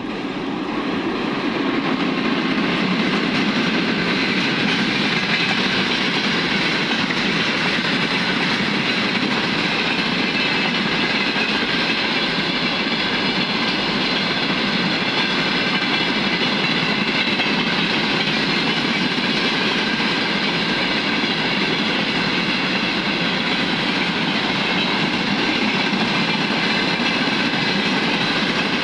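Freight train of tank cars rolling past: wheels clattering over the rail joints under a chorus of several steady, high whistling tones, the train's 'orchestra'. The sound swells over the first couple of seconds, then holds steady.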